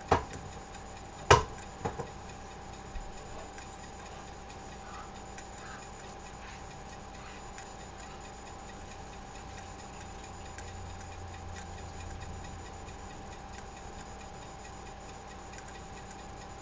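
A sharp metallic clink about a second in and a lighter one just after, from a can of chicken being handled and drained into a strainer. Then a steady faint hum with a thin steady high tone underneath.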